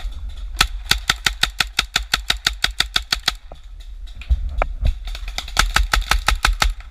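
Paintball marker firing in rapid bursts, about eight shots a second: a long burst of roughly three seconds, then a shorter one near the end.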